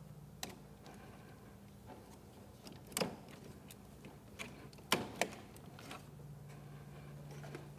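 Hager KDN463A 3-pole busbar being pushed into the quickconnect spring-clamp terminals of a row of circuit breakers: a few scattered plastic-and-metal clicks, the loudest about three seconds in and two close together about five seconds in. Under it, a faint low hum.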